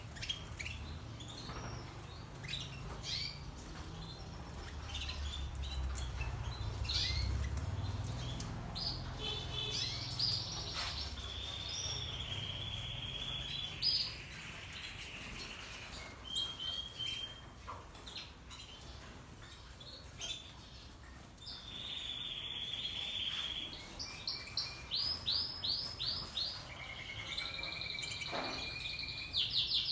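Canaries singing in their cages: scattered chirps, a few held trills, and near the end runs of quick repeated rolling notes. A low rumble sits under the first half.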